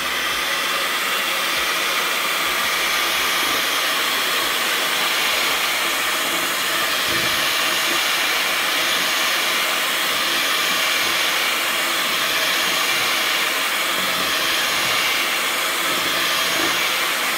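Electric mixer running steadily at medium speed, whipping the no-bake dessert's mousse filling.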